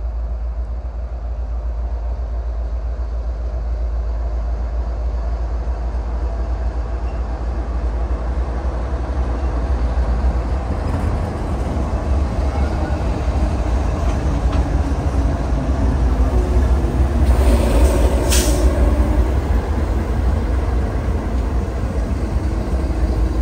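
A light-engine consist of CN diesel locomotives passing close by with no train behind, a steady heavy engine rumble that grows louder as the units go past. About eighteen seconds in there is one short, sharp hiss.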